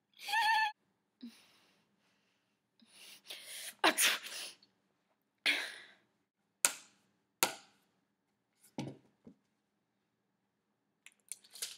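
A person fake-sneezing: a short voiced intake near the start, then a string of several quick, breathy sneeze bursts and sniffs a second or so apart.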